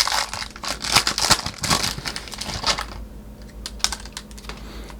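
A Topps jumbo card pack's wrapper crinkling as it is torn open and handled. The sound is busiest in the first three seconds, then thins to a few lighter rustles and clicks.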